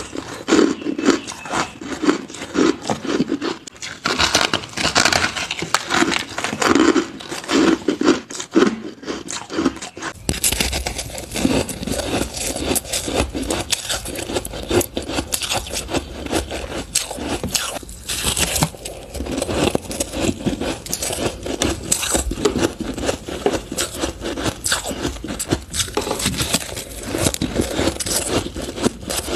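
Close-up chewing and crunching of crunchy purple crushed ice, a dense run of crackling crunches. About ten seconds in, a low hum comes in underneath.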